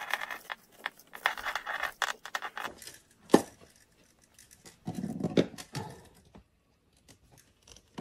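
Electrical wires being handled and a plastic wire nut twisted on by hand inside a metal electrical box. Scratchy rustling and scraping for the first few seconds, a single sharp click about three and a half seconds in, and a brief duller knocking around five seconds.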